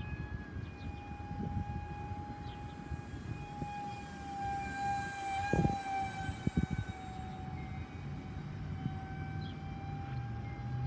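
Electric motor and fan of a small RC jet-conversion glider whining steadily in flight. The whine grows loudest about halfway through, then drops slightly in pitch as the plane passes, over low wind rumble on the microphone and a couple of short thumps.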